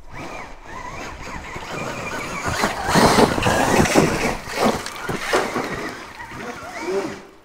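A 300cc two-stroke dirt bike engine revving hard in bursts as it is ridden up a steep, muddy enduro climb, getting loudest about three seconds in and easing off near the end.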